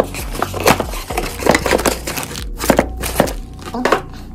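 Cardboard boxes and plastic-bagged accessories being handled inside a shipping carton: irregular knocks and scrapes of cardboard with crinkling plastic.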